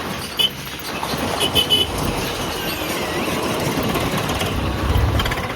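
Road traffic with short vehicle-horn toots: one about half a second in, then a quick run of toots around one and a half seconds, over a steady rumble of traffic that swells low near the end.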